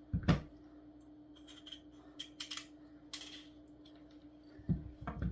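Kitchen knife cutting through raw potato and knocking on a chopping board: one sharp knock just after the start, then scattered lighter taps and clicks. A faint steady hum runs underneath.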